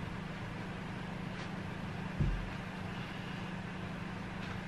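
Steady low hum of room tone, with one dull thump about two seconds in.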